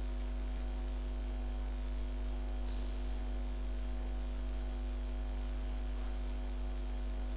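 Steady electrical mains hum with several steady tones over it, and a faint rapid ticking of about five ticks a second.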